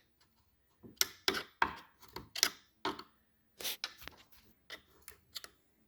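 Irregular, sharp metallic clicks and knocks, about a dozen, from parts and hand tools being handled while a Powerglide transmission's servo piston is rocked loose from the case.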